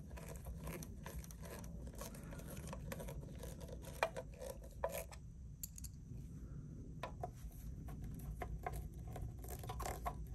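Scattered small clicks and taps of parts being handled and fitted on a tube amplifier kit's chassis, with two sharper knocks about four and five seconds in, over a low steady hum.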